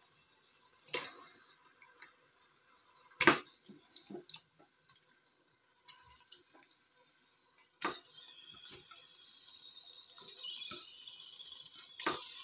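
Raw chicken pieces being put by hand into a pressure cooker of hot fried masala: a handful of soft knocks and clicks, the loudest about three seconds in, and a faint sizzle that builds from about eight seconds in as the meat meets the hot pan.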